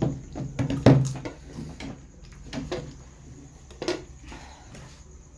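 Scattered sharp clicks and knocks of a plate, glass and utensils being handled while eating. The loudest comes about a second in and another near four seconds.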